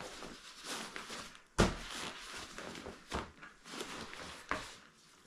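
Nylon rucksack fabric rustling and scraping as a folded foam sleeping pad is pushed into the pack's side pocket. There is a sharp thump about one and a half seconds in and lighter knocks a little later.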